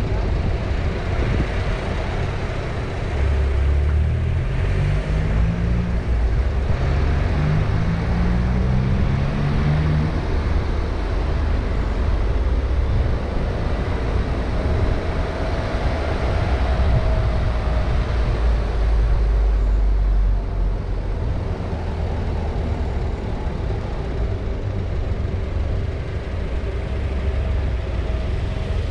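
Car driving: a steady engine and tyre rumble. A few seconds in, the engine pitch climbs twice in a row as the car accelerates and shifts up a gear, then settles back to an even cruise.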